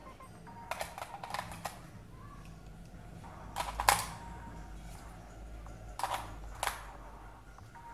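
AA batteries being pressed into the plastic battery compartment of an RC helicopter's remote control: short clicks and knocks in three small clusters, the loudest a little before halfway.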